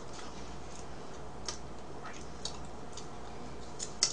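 Eating sounds: scattered short clicks and smacks as cake is eaten, roughly one every half second, the sharpest near the end, over a low steady hum.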